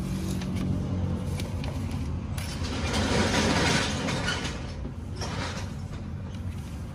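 Adhesive protection tape being handled and pressed onto a car's door sill: plastic film and backing paper rustling and crinkling, loudest for a couple of seconds in the middle, with small clicks. A steady low hum runs underneath.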